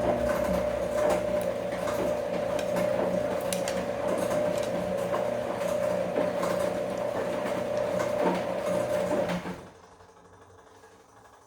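Bosch washing machine running: a steady motor whine over a lower hum, with scattered clicks and knocks. It stops abruptly near the end.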